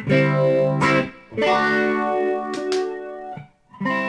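Electric guitar played through a Boss Katana 100 MK2 amp with modulation effects switched on: chords struck several times and let ring, with a short break about three and a half seconds in.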